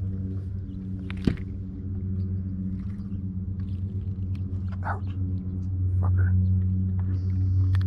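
Bow-mounted electric trolling motor running with a steady hum, with a sharp click about a second in.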